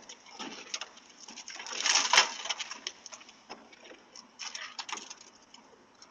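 Metal clicks and scrapes of a tool being worked at a car door, with a louder scraping rush about two seconds in and another run of clicks near the end, heard through a doorbell camera's microphone.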